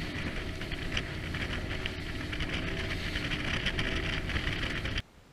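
Boat motor running steadily, with rushing wind and water noise, cutting off abruptly about five seconds in.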